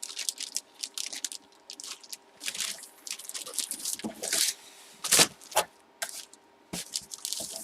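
Rustling and scraping of items being handled on a tabletop, with several sharp clicks or knocks, the loudest about five seconds in.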